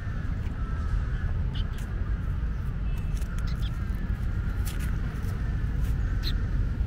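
Outdoor park ambience: a steady low rumble with faint, scattered bird chirps.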